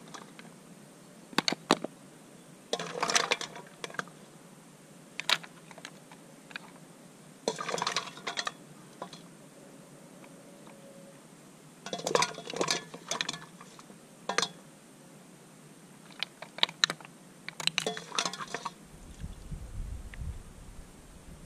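Steamed mussels being ladled with a metal slotted spoon from a stainless steel pot onto a plate: shells clinking and clattering against the spoon, pot and plate in short bursts every second or two. A low rumble near the end.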